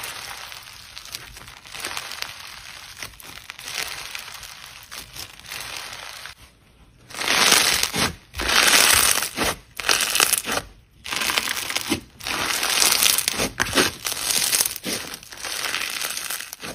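Hands kneading and squeezing crunchy slime packed with small plastic beads, making a crackling, crunching sound. The first part is softer stretching. From about seven seconds in come louder squeezes in separate bursts with short pauses between them.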